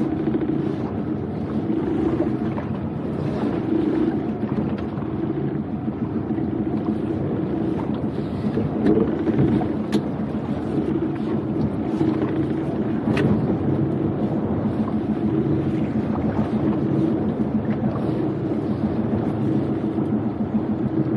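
Honda outboard motor running steadily at low speed while the boat creeps along, with a couple of light clicks partway through.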